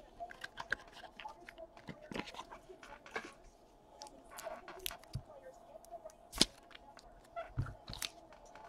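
Handling of a trading-card box and a stack of cards: soft rustles with scattered small clicks and taps as the box is opened and the cards are pulled out and handled. The loudest tap comes about six and a half seconds in.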